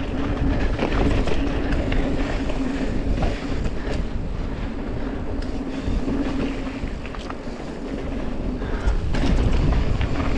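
Mountain bike descending a dirt trail: steady rumble of tyres rolling over the dirt, scattered knocks and rattles from the bike, and wind on the microphone.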